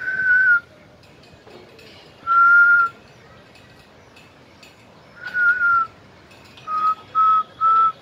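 A person whistling single steady notes: three notes of about half a second each, spaced a few seconds apart, then three short quick notes near the end.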